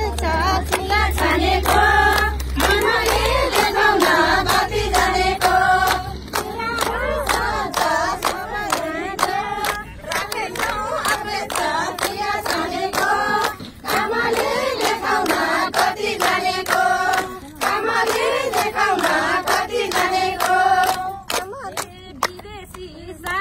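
A group of women singing a song together while clapping their hands in a steady rhythm.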